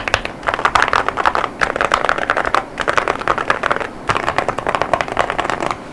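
Fast typing on an Akko JIN01 mechanical keyboard with Akko Rosewood linear switches (40 gf) and Cerakey ceramic Cherry-profile keycaps: a rapid run of keystrokes broken by a few short pauses.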